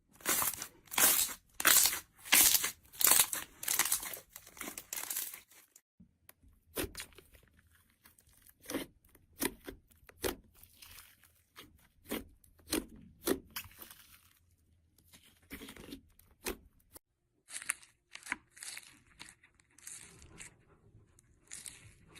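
Slime being squeezed and stretched by hand, giving short sticky crackles and pops. They come thick and loud for the first six seconds, then thin out into scattered pops and softer crackling.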